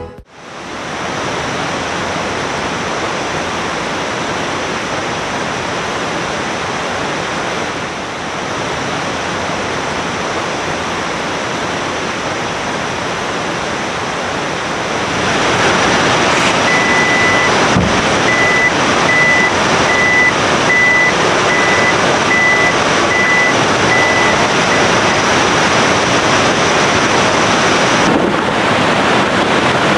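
River water rushing steadily, growing louder about halfway through. A thin high steady tone sits above it, and in the second half a series of short high chirps comes about once a second.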